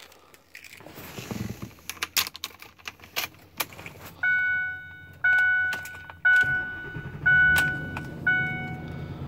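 Keys jangling and clicking into the ignition of a 2010 Ford F-250 pickup, then the dashboard warning chime dinging about once a second once the key is turned on. The engine starts about six and a half seconds in and settles into a steady idle under the chimes.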